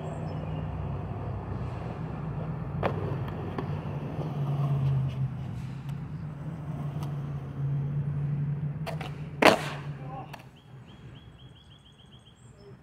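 Skateboard wheels rolling on concrete, a steady low rumble, with a sharp click about three seconds in and a loud clack of the board about nine and a half seconds in; the rolling dies away soon after.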